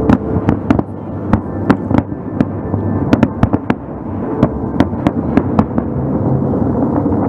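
Fireworks display: a rapid, irregular series of sharp bangs from bursting shells over a steady low rumble. The bangs thin out near the end.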